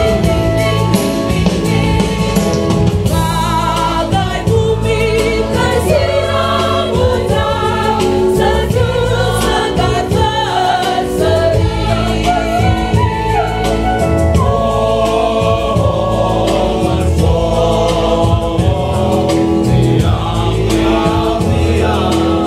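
A large mixed church choir of women's and men's voices singing an Indonesian hymn in parts, without a break.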